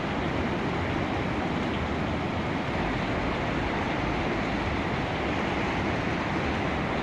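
River in flood pouring over a weir: a steady, heavy rush of churning water.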